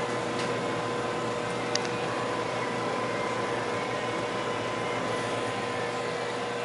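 1988 Harco electric screen-printing dryer running: a steady whir of air from its fan motors, with a steady mid-pitched tone.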